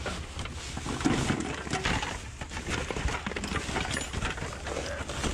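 Rummaging through a dumpster of discarded tools: a dense, irregular run of clatters, knocks and scrapes of metal and plastic objects being moved about.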